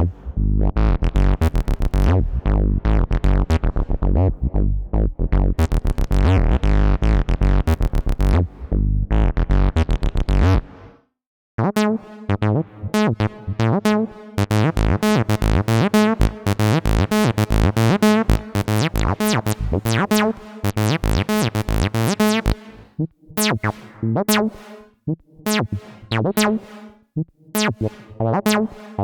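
Behringer TD-3-MO analogue bass synthesizer playing a fast, resonant acid bassline sequence. It stops about eleven seconds in, and after a short silence a different, higher-pitched pattern starts.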